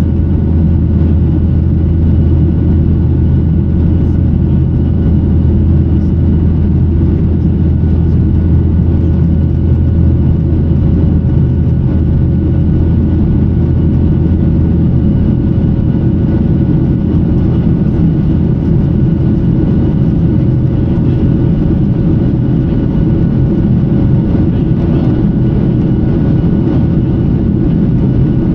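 Boeing 737-900ER's CFM56-7B jet engines running with a steady loud drone: a deep hum under a rushing noise, with a few faint steady whine tones on top.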